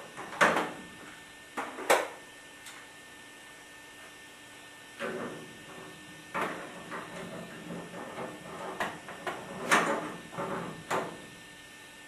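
Irregular sharp metal knocks and clanks with short scraping, hand tools working on pipe fittings while a gas line is connected, over a faint steady hum.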